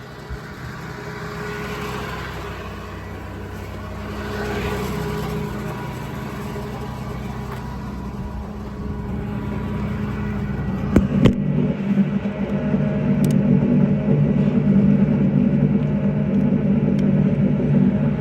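Ram 5500's 6.7 Cummins diesel running at raised RPM with the PTO engaged, a steady hum that grows louder. About 11 seconds in there are two sharp clicks, and a deeper, louder hum follows.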